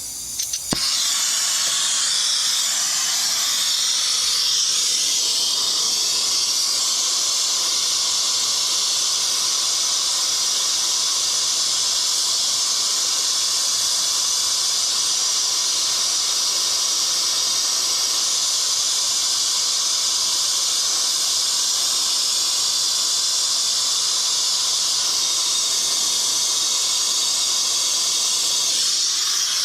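Brazing torch flame burning with a steady, loud hiss, with a few sharp clicks under a second in as the flame gets going.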